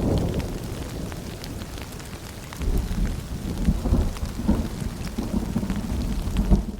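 Steady rain with low rolling thunder. One rumble fades over the first couple of seconds, and another builds about two and a half seconds in, under the constant patter of drops.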